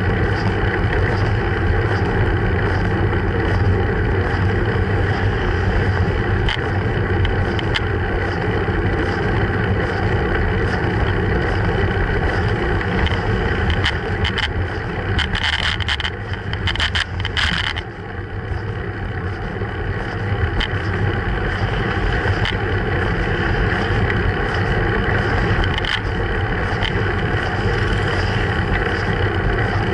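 Wind and road rumble on a bicycle-mounted action camera's microphone while riding, steady throughout. About halfway through the rumble drops for a few seconds and a cluster of clicks and rattles comes through.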